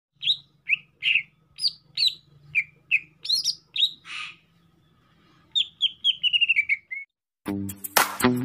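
Caged green leafbird (cucak ijo) singing: a string of sharp separate chirps about twice a second, then a quick trill of notes falling in pitch. Music starts just before the end.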